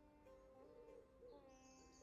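Faint soft background music of held notes, with a high bird call coming in about halfway through.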